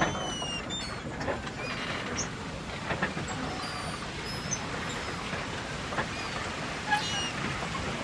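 Marina dock ambience: a steady low rumble and wash of background noise, with occasional knocks and short, high bird chirps scattered through it.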